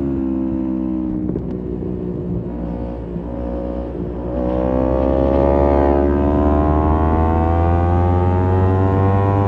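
Kawasaki Z250 parallel-twin engine through an aftermarket SeaPro muffler. Revs fall off for about four seconds on a closed throttle, then the throttle opens and the engine pulls with revs rising steadily through the gear.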